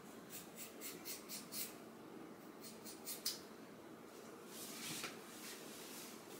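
Scissors snipping hair: quick short snips in two runs, about six and then four, with a soft rustle near five seconds in.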